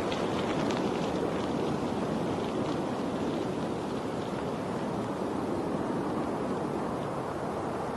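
Steady rushing of water, even and unbroken, with faint crackling splashes in the first few seconds.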